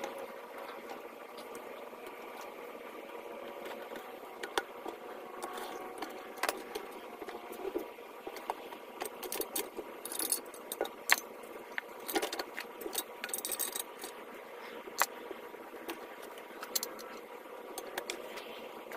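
Irregular light metallic clinks, taps and rattles, as of tools being handled while working a tire off its rim by hand. They come thickest in the middle stretch.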